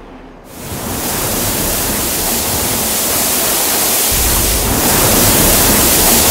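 Strong jet of water from a hose spraying against a slab of stone wool insulation: a steady hissing rush that starts about half a second in and slowly grows a little louder.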